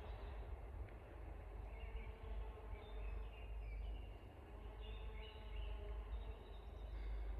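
Small birds chirping in short calls over a steady low rumble of background noise, the chirps coming mostly in the middle stretch.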